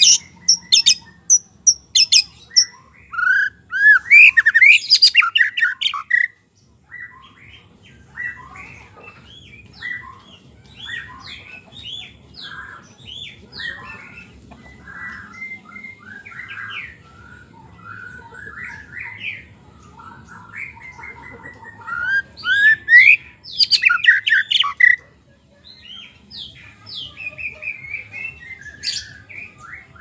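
White-rumped shama (murai batu) singing: loud, rapid bursts of sweeping whistles mixed with harsh, scratchy notes in the first six seconds and again a little past the middle, with softer, varied phrases in between.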